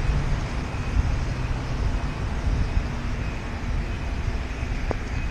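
Traffic noise on a rain-wet city street, heard from a moving bicycle: a steady rushing noise with a deep rumble and a faint engine hum.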